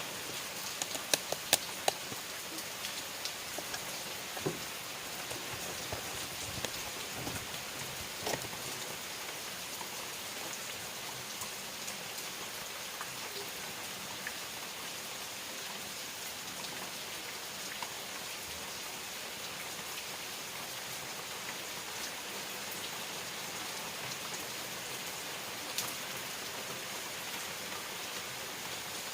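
Steady rain falling, an even hiss with sharp single drops landing close by, several in the first two seconds and a few more scattered later.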